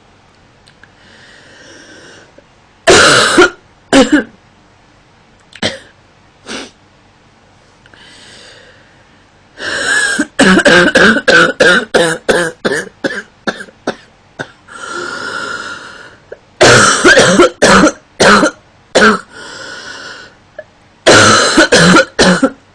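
A woman coughing in repeated fits: a few single coughs, then a long rapid run of short hacking coughs about ten seconds in, then two more clusters of coughs, with quieter breaths drawn between the fits.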